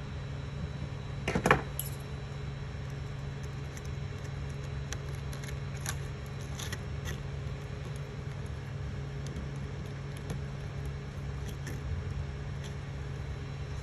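Steady hum of the Creality Ender 3 3D printer's cooling fans, with scattered faint ticks and one louder click about a second and a half in.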